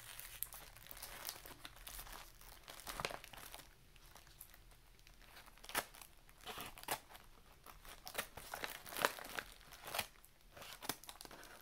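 A taped mailing envelope crinkling and rustling as it is handled and cut open with scissors, with irregular sharp snips and crackles.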